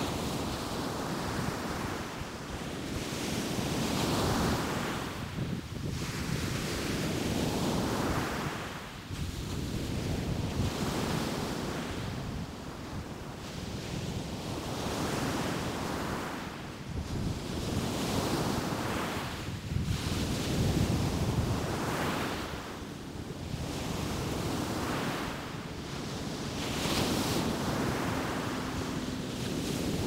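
Ocean surf breaking and washing up on a sandy beach, swelling and easing every few seconds, with wind rumbling on the microphone.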